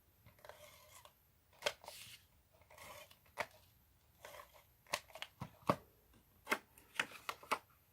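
Card stock handled on a craft table, with a string of short sharp clicks and light rustling and scraping as adhesive is laid on with a Fast Fuse applicator.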